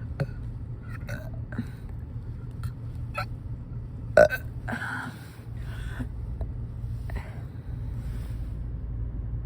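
A young woman burping. The loudest is a short, sharp one about four seconds in, followed by a longer, breathier sound, with small clicks around them. A steady low hum runs underneath.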